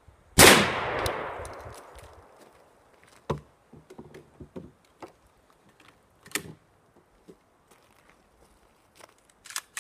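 A single 12-gauge shotgun shot firing Federal Flitecontrol buckshot, about half a second in, with a long echo dying away over a second or so. It is followed by scattered clicks and knocks of guns being handled and set down on a wooden table.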